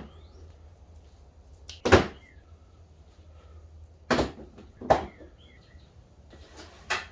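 Four sharp metallic knocks and clatters, a second or two apart, from tools and hardware being handled while working under a car.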